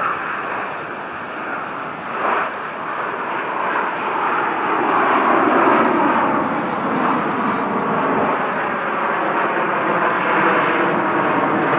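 A close formation of Aermacchi MB-339 PAN jet trainers flying overhead, their jet engines making a steady roar. The roar grows louder from about four seconds in, and part of it sinks in pitch as the jets pass.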